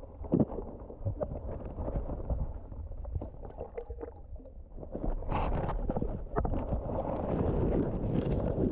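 Water noise picked up by a submerged camera: a low rumble with scattered knocks and rustles as the camera pushes through floating seaweed, growing louder about five seconds in.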